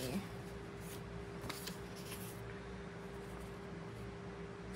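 Faint rustling of a paper sticker sheet being handled and slid over an open planner page, with a few soft scrapes in the first half, over a steady faint hum.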